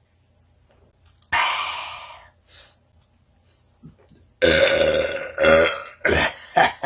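A man belching: a short, breathy burst about a second in, then a long, loud, pitched belch from about four seconds in, followed by a few shorter pulses.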